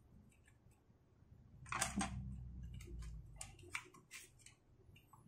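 Quiet handling clicks and ticks as a laptop SATA hard drive is unscrewed and worked loose from its mounting caddy with a small screwdriver. The clicks are sparse at first and come thick and fast from about two seconds in for a couple of seconds.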